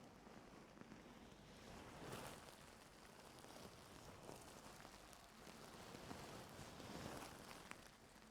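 Faint scraping and rustling of ear-cleaning tools working inside an ear canal, in soft swishes with a few tiny clicks.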